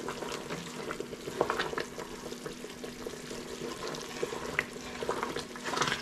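Sugar syrup at a rolling boil in a stainless steel pot, bubbles crackling and popping while a silicone spatula stirs and scrapes the pot, over a faint steady hum.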